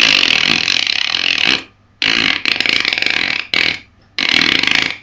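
Beatbox frog-croak basic: a rasping mouth sound made by holding the breath and pulling the air in the mouth cavity inward past the tongue pressed against the upper molars, in four bursts, the first the longest.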